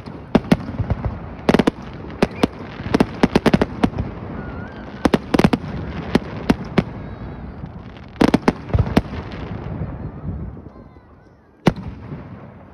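Aerial fireworks display: shells burst overhead in clusters of sharp bangs, with crackling between them. The bangs thin out to a quieter lull near the end, then one more sharp bang.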